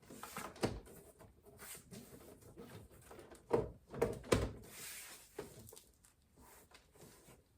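Door trim panel being handled and fitted onto a car's rear door: scattered plastic knocks and clatter. The loudest are three thumps in quick succession a little past the middle.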